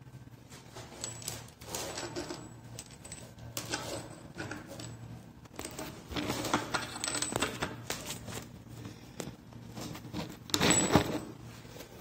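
Handling noises from a chrome basin mixer tap and its fittings: irregular metallic clinks and rustling, with a louder clatter near the end.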